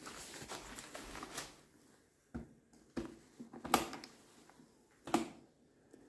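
Rustling handling noise, then a few sharp clicks from a key being worked in a scooter's ignition switch, the loudest about two-thirds of the way through.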